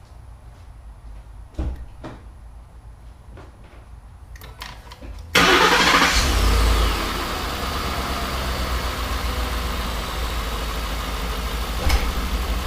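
A few faint clicks and knocks, then about five seconds in the 2012 Ford F-150's 5.0-litre V8 is started: it catches at once, flares up loudly for a moment and settles into a steady idle.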